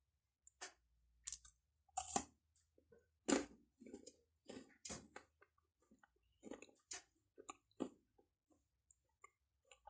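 Close-up chewing and crunching of a chocolate bar: a run of crisp crunches about every half second, loudest around two and three seconds in, with softer chewing between them.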